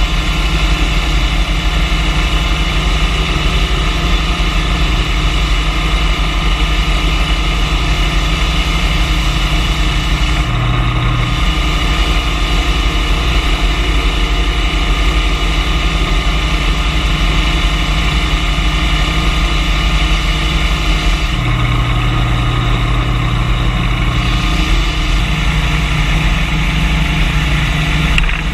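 Lagler Hummel belt floor sander running steadily as it sands a red oak floor, a loud continuous machine hum. Its low hum grows stronger twice for a moment, the second time for a few seconds.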